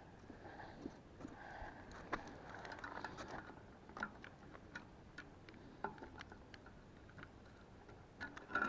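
Scattered small metallic clicks and rattles of a coiled cable bicycle lock and its key as the cable is threaded through the frame and rear wheel and fastened, with a louder cluster of clicks near the end.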